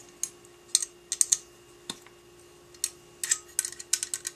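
Small irregular metal clicks and taps of an Allen wrench working the screws of a two-piece quad-rail handguard as they are snugged down, in short clusters about a second in and again from about three seconds in.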